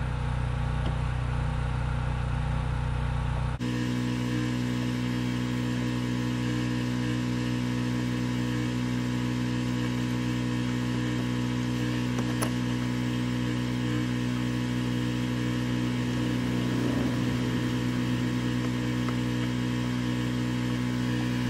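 Steady mechanical hum of a motor or engine running, its pitch shifting suddenly about three and a half seconds in and then holding steady.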